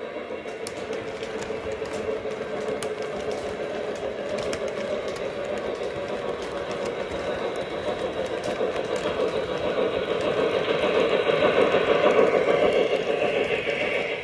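Lionel O-scale model train running on three-rail track: a steady rumble of wheels with small clicks over the rail joints, growing louder about three-quarters of the way through as the Legacy Russian Decapod steam locomotive draws close.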